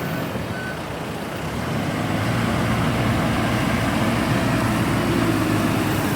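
Backhoe's diesel engine running under load while it digs, growing louder about two seconds in. One or two short reversing beeps sound near the start.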